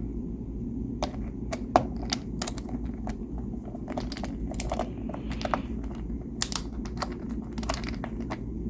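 Light, irregular clicks and taps of a small screw being driven into a threaded hole in the steering wheel assembly and of the parts being handled, over a steady low hum.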